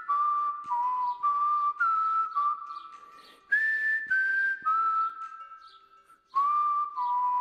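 Outro background music: a whistled melody of held notes over a light backing, fading out a little after halfway and starting again just before the end.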